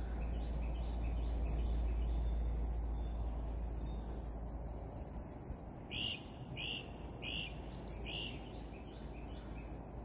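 Songbirds chirping: a run of short, evenly repeated chirps, about one and a half a second, louder in the second half, with a few sharp high chips standing out.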